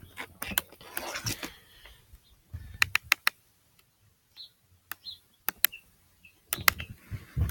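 Irregular sharp clicks and taps in small clusters, with a few faint, short high peeps from a young chick.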